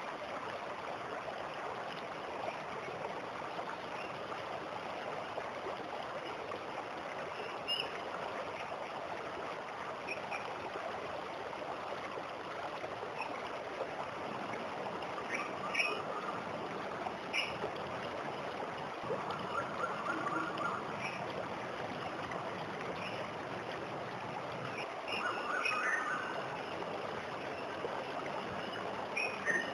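Steady rush of falling water from a waterfall, with birds chirping now and then over it: short high chirps scattered through, and a few brief warbled calls in the middle and near the end.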